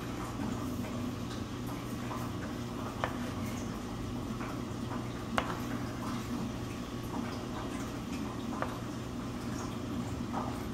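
Crayon scratching on paper laid on a plastic play table, with a few faint taps, over a steady low room hum.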